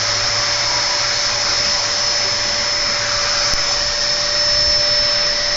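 Vacuum cleaner running steadily with a constant whine, used to groom a dog's coat.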